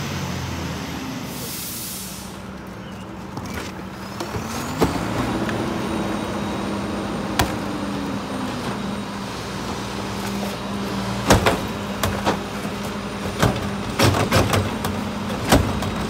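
Mack MRU rear-loader garbage truck with a Heil body idling, with a burst of air-brake hiss about a second and a half in as it stops. The engine revs up and back down a few seconds later, and near the end a series of sharp bangs and clanks come from carts being tipped into the rear hopper.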